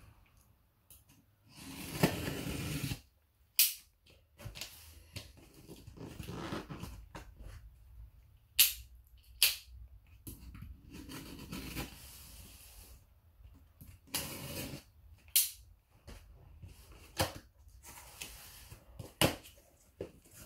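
Packing tape on a cardboard shipping box being slit with a knife and pulled off, with the cardboard scraping and rustling. Sharp snaps and clicks come at irregular moments.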